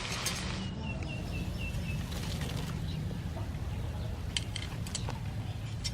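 A bird calls a quick run of about seven short, high chirps, each falling slightly, about a second in, over a steady low rumble. A hiss cuts off just before the chirps begin, and a few light clicks come later.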